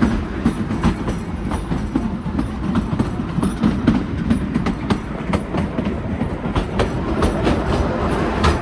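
Kalka–Shimla narrow-gauge toy train running along the track: a steady rumble with the wheels clicking over the rail joints several times a second.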